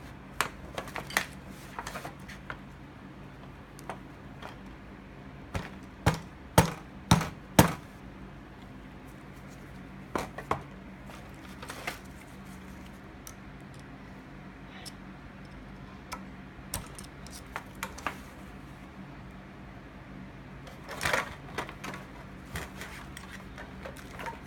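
Pliers and metal carburetor parts of a Suzuki Bandit 1200S carb bank clicking and clinking as the carbs are worked apart by hand, in irregular clusters with four sharp knocks about six to eight seconds in, over a faint steady hum.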